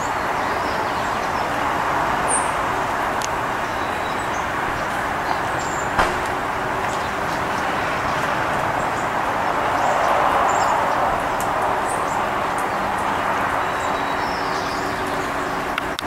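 Steady hum of distant road traffic, swelling a little about ten seconds in, with a few faint ticks.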